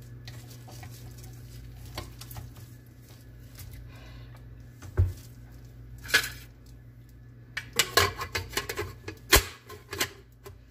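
Clicks and knocks of a KitchenAid tilt-head stand mixer being set up: the wire whisk clicked onto the beater shaft, the head lowered into the stainless steel bowl with a thump about five seconds in, then a run of plastic clicks and knocks as the pouring shield is fitted onto the bowl rim. A steady low hum lies underneath.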